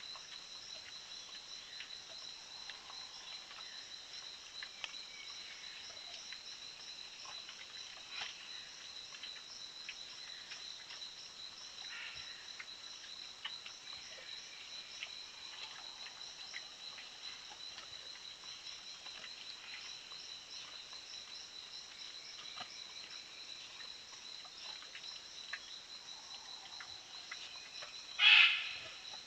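Steady insect chorus, a high even chirring tone, with faint scattered ticks throughout. About a second before the end a single short, loud, sharp sound stands out above it.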